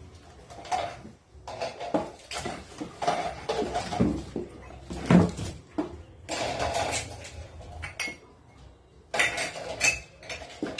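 Dishes and cutlery clattering and clinking: an irregular run of knocks and clinks with a couple of short pauses.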